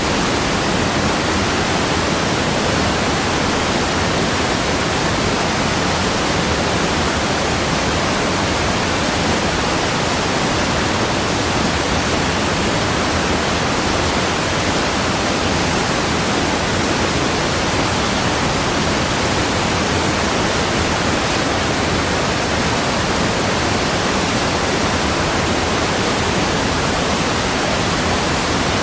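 Waterfall: a continuous, steady rush of falling water, even and unchanging.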